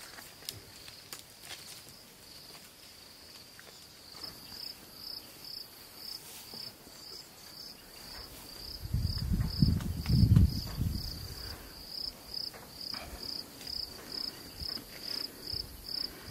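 An insect chirping in an even string of high chirps, about two or three a second, starting a few seconds in. Near the middle comes a loud low noise lasting about two seconds.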